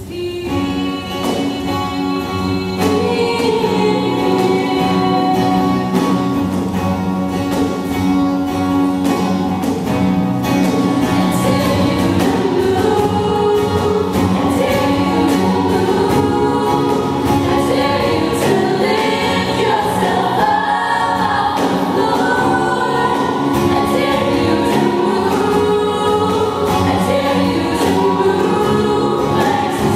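Young women's vocal group singing a song in harmony, with a steady beat under the voices. The singing swells up over the first few seconds.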